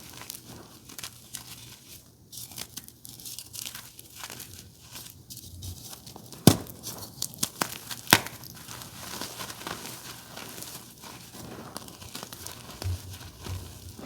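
Blocks of blue reformed gym chalk crushed by hand, crumbling and crackling continuously, with two louder sharp snaps around the middle, a second and a half apart.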